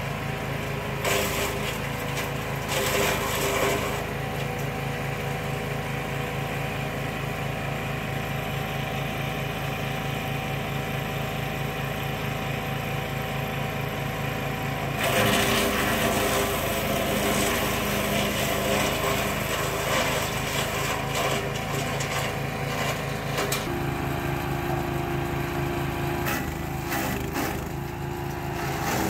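Wood chipper's small petrol engine running steadily, with stretches of louder rough grinding as branches are fed through and chipped, briefly about a second in and again for several seconds around the middle. The engine's note changes about two-thirds of the way through.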